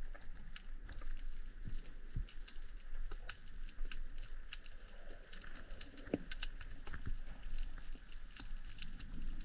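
Underwater ambience heard through an action camera's waterproof housing: a steady hiss scattered with irregular clicks and crackles from the rocky seabed, and a few dull knocks, the strongest about six seconds in.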